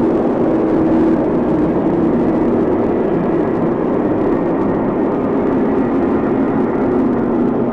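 Stomach growling in one continuous, loud rumble with a low drone that fades in and out.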